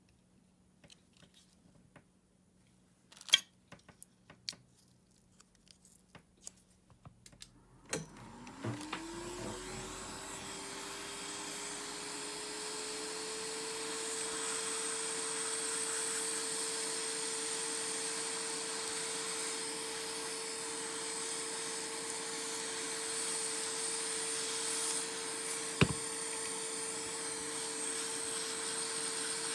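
Scattered clicks and knocks of handling, one of them sharp, then about eight seconds in a small power-tool electric motor starts, its pitch rising over a few seconds before it settles and runs steadily. A single sharp click near the end.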